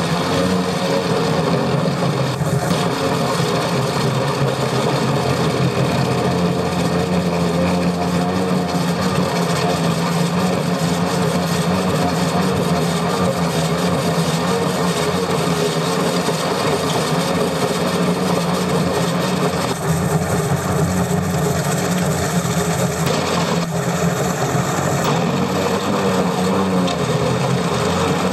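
Echidna OmniCut excavator-mounted rock saw cutting very hard (150+ MPa) Muschelkalk limestone: a steady, loud din of the saw wheel grinding through the stone together with the excavator's engine running under load.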